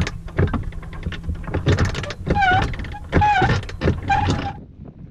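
Anchor chain clanking and rattling as it is hauled in and falls into the chain locker, over a steady motor hum that stops about a second and a half in. Three short squeaks come in the second half, and the clanking stops near the end.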